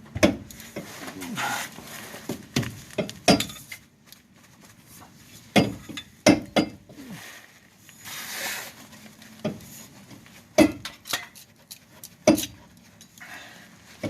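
Metal shock absorber hardware and hand tools clinking and knocking as parts are handled and fitted onto a shock, about eight sharp irregular strikes with handling noise between them.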